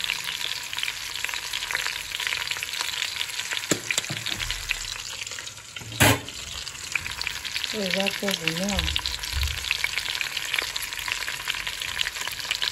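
Beef, peppers and onions frying in oil in a stainless steel pot: a steady sizzle full of small crackles. A single sharp click comes about six seconds in, and a short hummed voice sounds a couple of seconds later.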